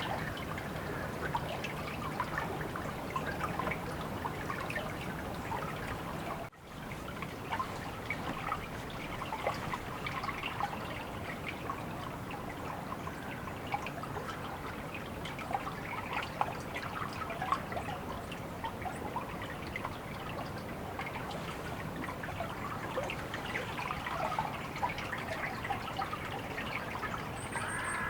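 Water trickling and dripping in a steady patter of small splashes, broken by a brief sudden drop-out about six and a half seconds in.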